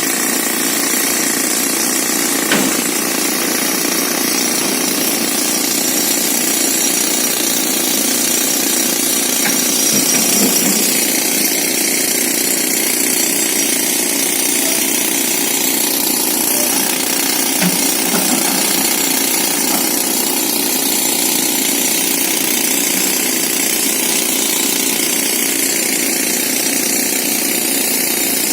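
Pneumatic rock drill hammering steadily into hard rock: a loud, continuous rapid chatter.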